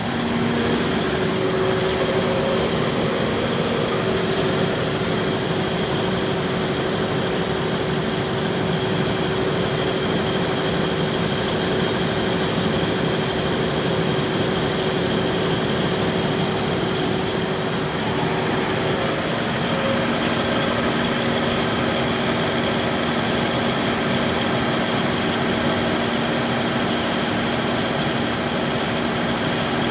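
Cummins KTA50 V16 turbocharged diesel engine of a 1500 kVA generator set running steadily, fully warmed up, as one loud even hum with no breaks.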